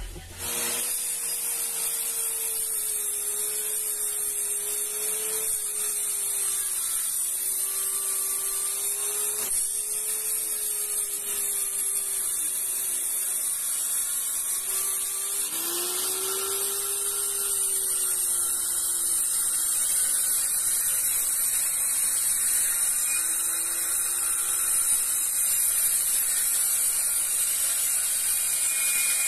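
Electric circular saw motor running while cutting plywood: a steady high hiss with a whine whose pitch wavers, changing abruptly about halfway through.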